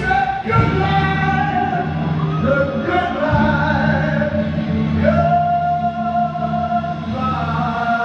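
Live singing over a band, long notes held and drawn out in the closing phrase of a ballad, with a fresh sustained note starting about five seconds in.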